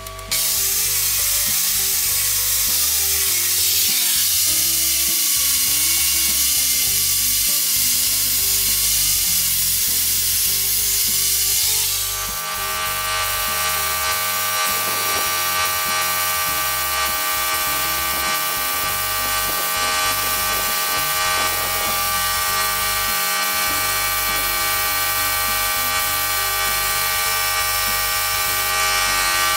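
Loud steady hiss of compressed air that starts suddenly. About twelve seconds in it changes to the hiss of a gravity-feed spray gun spraying paint onto a welded steel lamp.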